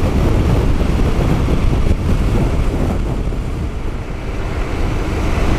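Wind noise on the microphone of a Honda NC 750X motorcycle at highway speed, about 100 km/h: a steady low rush of wind and road noise with the engine beneath it, dipping slightly in loudness about four seconds in.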